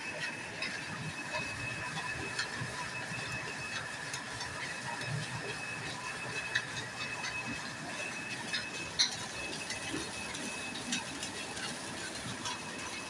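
A belt-driven 4-bolt mustard oil expeller (screw press) running under load: a steady mechanical whir with a faint high whine, scattered sharp ticks and crackles as the seed is crushed, and one louder click about nine seconds in.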